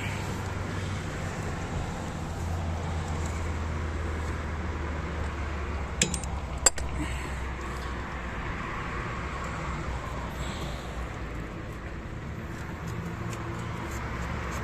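Two sharp metallic clinks about six seconds in, from a 32 mm socket wrench working the oil filter housing cap loose, over a steady low hum.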